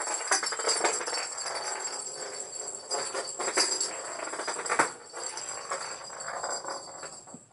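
A cat batting and rolling a jingle-bell ball toy, the bell jingling and rattling unevenly with many separate shakes.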